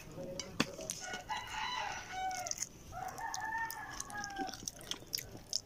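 Rooster crowing twice in a row, each crow a drawn-out pitched call of about a second and a half. Sharp clicks of eating sound over it, one loud about half a second in.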